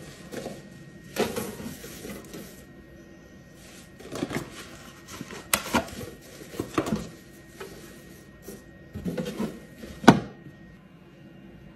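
Clear acrylic drawer being filled by hand: rustling of thin crumpled white material being stuffed in and pressed down, with light clacks of hard plastic and one sharp knock about ten seconds in.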